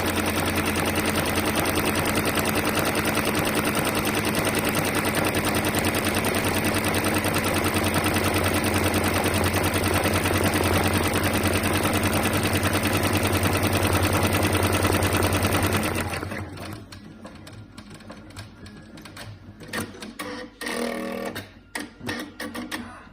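Brother sewing machine running at high speed, a fast even stitching rhythm over a steady motor hum, which stops about sixteen seconds in. Softer scattered clicks follow.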